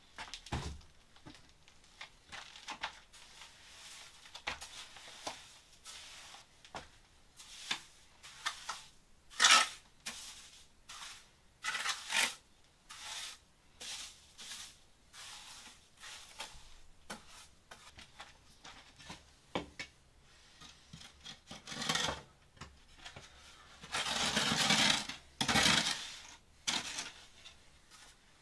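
Intermittent scraping, rubbing and clinking of hard objects being handled, in scattered short strokes. There is a sharp louder scrape about nine seconds in and a longer run of scraping near the end.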